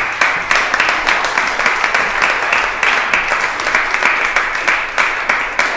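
Audience applauding: steady, dense clapping by many hands.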